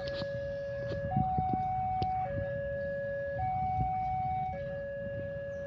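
Railway level crossing warning alarm: an electronic two-tone signal switching back and forth between a lower and a higher tone, each held for about a second, sounding while the crossing is closed for an approaching train.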